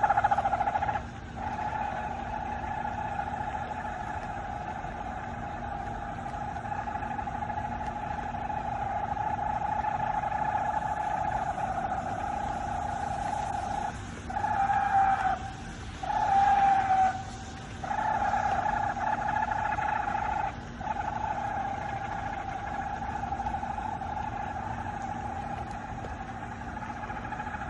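A steady, loud droning hum with overtones, of the kind posted as 'strange sounds in the sky'. It cuts out briefly about a second in and several times in the middle, then resumes unchanged.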